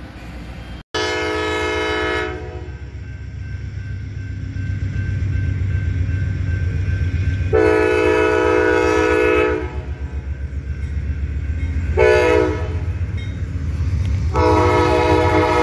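Amtrak diesel locomotive approaching and sounding its horn for a grade crossing: a long blast, another long blast, a short one, and a final long blast that starts near the end and is still going. A low engine rumble grows louder underneath as the train gets closer.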